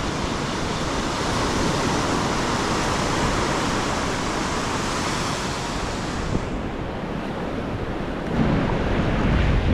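Ocean surf breaking and washing up the beach, a steady rushing, with wind on the microphone; a louder low rumble comes in near the end.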